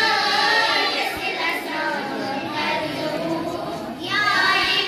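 A group of girls singing a Kashmiri manqabat, a devotional praise song, together into microphones. After a brief dip, a new loud phrase begins about four seconds in.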